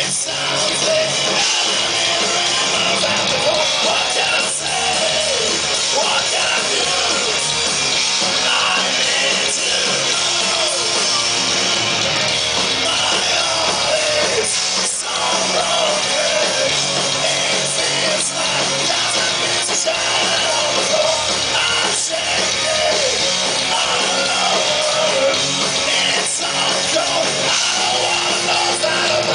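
Live punk rock band playing: electric guitars, bass and drums, with the lead singer singing into the microphone over them.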